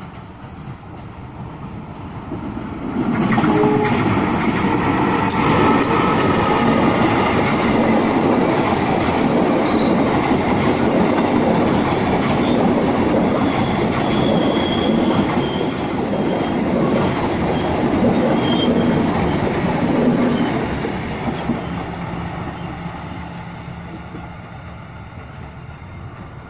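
A passenger train of Indonesian KAI coaches passing close by: rumble and clatter of the wheels over the rails, swelling about three seconds in and then fading as it moves away. A thin, high wheel squeal rises over it in the second half.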